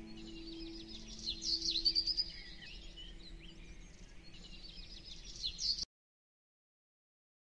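Birds chirping over held music notes that fade out about a second in. This is the birdsong layer of a background music track. The sound then cuts to dead silence about six seconds in.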